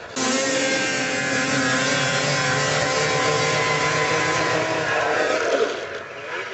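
Snowmobile engine running at high, steady revs, cutting in abruptly at the start and falling away about six seconds in.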